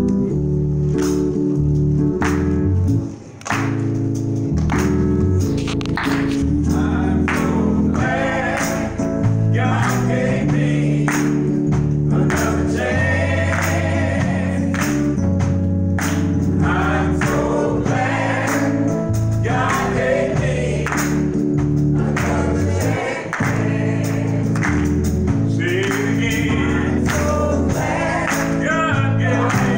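Small gospel choir singing with electronic keyboard accompaniment and a steady beat; the voices come in strongly a few seconds in over the keyboard chords.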